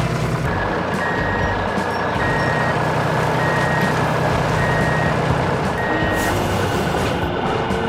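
Reversing alarm of a heavy construction vehicle beeping five times, about one beep a second, over the vehicle's engine running steadily.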